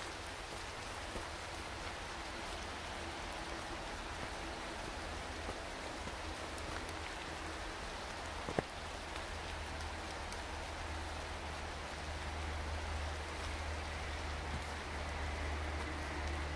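Steady, even hiss of water in the woods, pattering like rain on leaves, getting a little louder in the last few seconds. A low rumble runs underneath, and there is one sharp click about halfway through.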